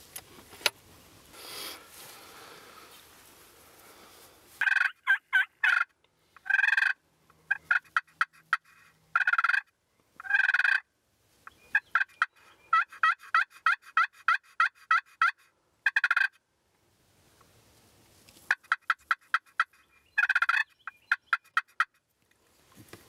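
Wild turkey toms gobbling again and again: loud, rapid rattling calls, some single and some in quick runs. A single sharp click sounds under a second in, before the gobbling starts.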